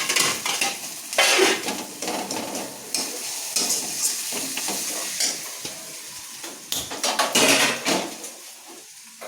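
Metal spatula stirring and scraping food around a frying pan, with the food sizzling in hot oil; the strokes come irregularly, with louder bouts about a second in and again near the end before it quietens.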